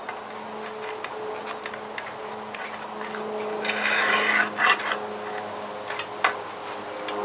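Hands handling a bicycle tire and rim: scattered light clicks and taps, with a brief rustle about four seconds in, over a faint steady hum.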